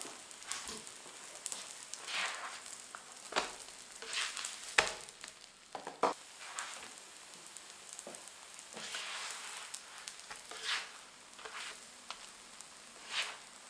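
Stuffed msemen frying on an electric griddle with a steady sizzle that swells now and then. A few sharp knocks and scrapes of a spatula on the griddle break in as the crêpes are turned.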